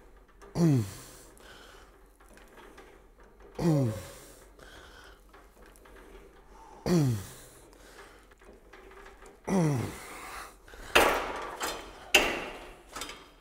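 A man grunting with effort through cable tricep extension reps, four grunts falling in pitch about three seconds apart. Near the end come two sharp knocks, the loudest sounds.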